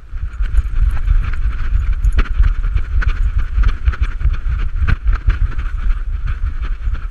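Constant rumble and buffeting from a GoPro strapped to a running bull terrier, with irregular knocks and clicks as the dog chases and bumps into a stability ball.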